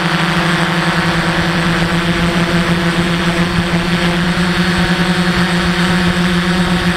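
DJI F450 quadcopter's brushless motors and propellers running steadily while hovering, a loud, even buzz of one constant pitch, heard up close from the camera on board the drone.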